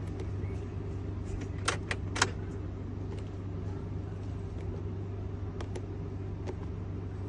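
Keys clicking and jangling, a few sharp clicks about two seconds in and fainter ticks after, over a steady low hum.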